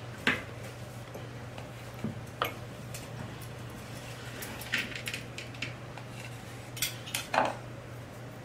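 Kitchen knife cutting through stacked slices of white bread and knocking against the cutting board beneath: several sharp clicks and knocks at irregular intervals, over a steady low hum.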